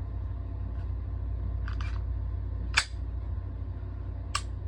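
Canik TP9SF Elite pistol being cleared by hand. A couple of light clicks come first, then a sharp metallic clack from the slide being worked about three seconds in, and a second clack near the end.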